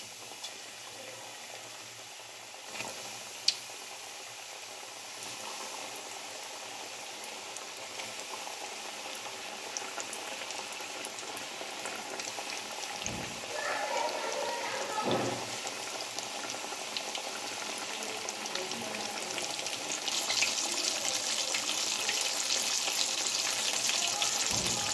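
Flour-coated chicken pieces deep-frying in hot cooking oil in a kadhai: a steady sizzle and crackle that grows louder, with a step up near the end. A single sharp click sounds a few seconds in.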